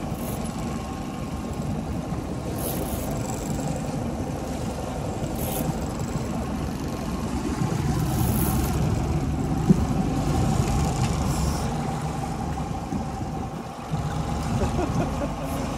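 Boat engine running steadily under wind and water noise, with a single sharp knock about ten seconds in.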